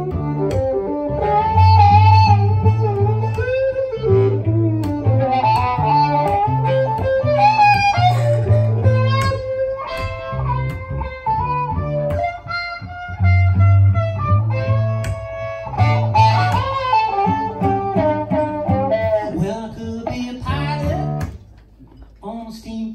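Instrumental break: an electric violin plays a lead of bending, sliding notes over a cello bass line. The lead drops out shortly before the end and the music gets much quieter.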